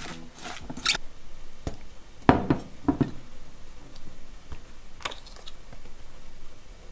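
Metal spoons knocking against a stainless steel mixing bowl, with the clicks and rustle of chopped cabbage being handled. There are a few sharp, ringing knocks about two and three seconds in, and a brief patter of clicks near the end.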